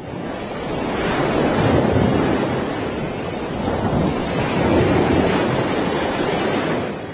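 Ocean waves washing in a steady rushing noise that fades in at the start and swells and eases twice.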